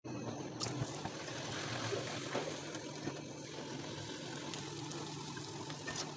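Puri deep-frying in hot oil in a wok: the oil sizzles steadily, with a few faint clicks.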